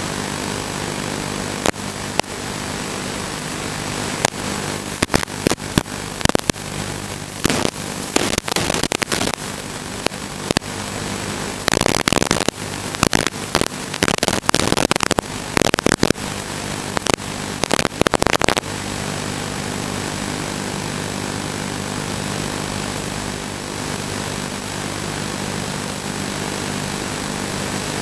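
Steady electronic buzz and hiss on the audio of an analog FPV video link. From about 4 seconds in to about two-thirds through, bursts of crackling static cut in and out, the sign of the radio signal breaking up.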